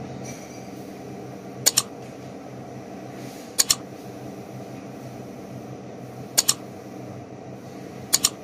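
Four double mouse-click sound effects from an animated subscribe-button overlay, spaced about two seconds apart, over a steady low rumble.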